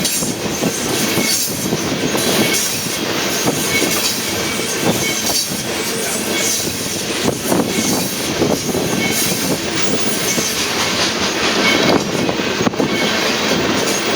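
Freight train of crude oil tank cars rolling past close by: a steady rumble of steel wheels on rail, with repeated clacks over the rail joints and short, high wheel squeals now and then.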